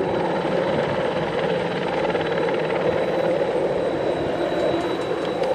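Sightseeing helicopter taking off, its engine and rotor running with a steady, even sound.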